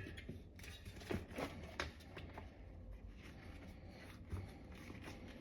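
Faint scattered rubbing and knocking of hands working a rubber bicycle tire and tube onto the wheel rim, a few separate handling sounds over low room noise.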